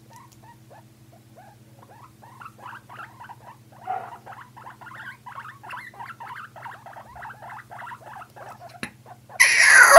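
Guinea pigs making quick, short squeaks that come thicker and louder after the first couple of seconds, then one loud squeal with falling pitch near the end.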